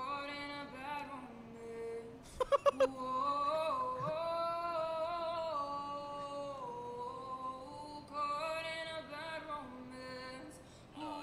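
A man singing unaccompanied, holding long notes that step and slide between pitches, with four quick loud pulses about two and a half seconds in.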